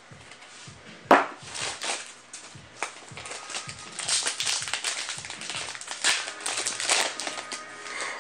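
Yu-Gi-Oh! trading cards being handled by hand: irregular rustling and crinkling with sharp clicks and taps, one loud tap about a second in and the busiest handling in the middle.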